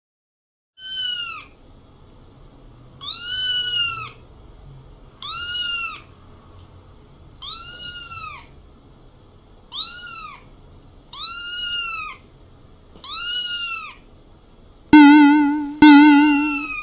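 A cat meowing seven times, each meow rising then falling in pitch, about every two seconds. Near the end, plucked-string music with wavering notes comes in loudly.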